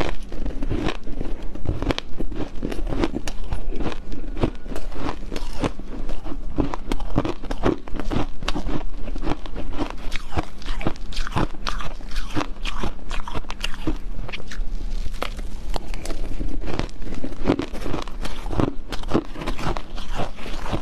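A person biting and chewing a mouthful of shaved ice mixed with hard ice chunks: a dense, continuous run of crisp crunches.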